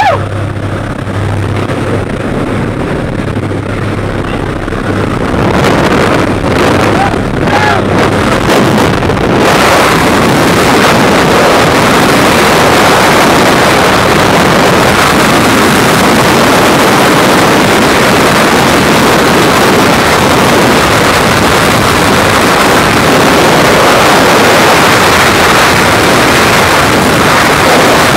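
Jump-plane engine drone with air rushing past the open door. About nine or ten seconds in it gives way to a steady, loud rush of freefall wind across the microphone.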